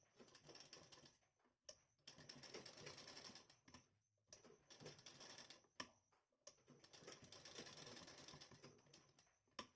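Sewing machine stitching, faint, in four short runs of rapid ticking with brief stops and a few sharp clicks between them: topstitching a turned blouse-neck design piece.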